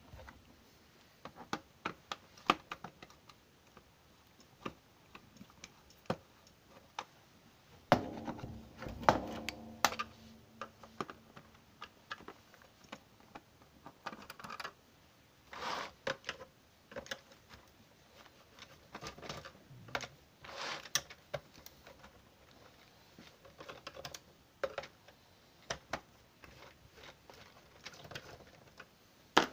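Irregular clicks, taps and knocks of an Amiga 600's plastic case being handled and its screws undone with a screwdriver. About eight and nine seconds in come two louder knocks that ring briefly.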